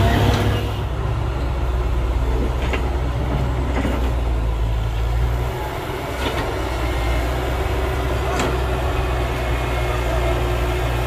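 Heavy diesel construction machinery running steadily: a low engine rumble with a few short knocks or clanks scattered through it.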